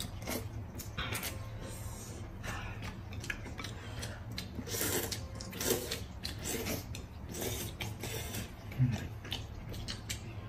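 Two people slurping and chewing braised noodles (huimian), in short irregular slurps and mouth clicks of uneven length.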